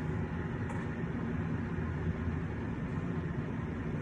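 A steady low rumble, with no distinct events.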